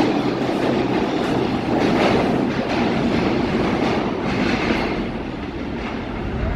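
A New York City Subway R142 train pulling away down the tunnel, its wheels rumbling and clattering over the track, the sound slowly fading as it goes.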